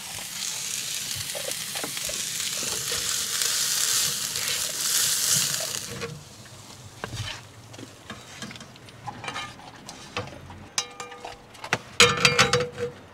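Thinly shaved steak sizzling in a frying pan on a propane camp stove. After about six seconds the sizzle drops away, leaving scattered clicks and scrapes of a metal spatula and tongs against the pan as the meat is lifted out, with a louder clatter near the end.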